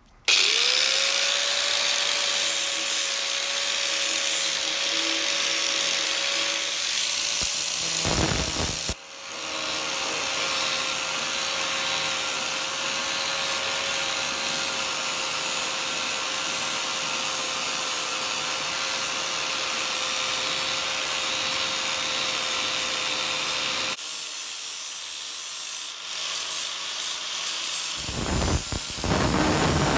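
Angle grinder with a flap disc grinding the steel head of an old hammer: a steady motor whine over the rough hiss of abrasive on metal. The whine rises as the grinder spins up at the start, breaks off briefly about nine seconds in and picks up again. It drops out in the last six seconds while the rough grinding noise goes on.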